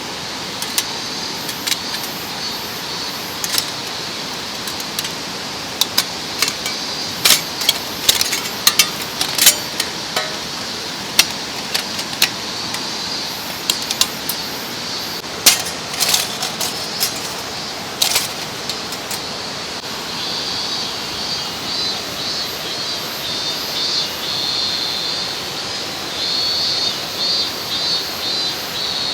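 Repeated light metallic clinks and taps over the steady rush of a mountain stream. About two-thirds of the way through, a high, pulsing insect chirr joins in.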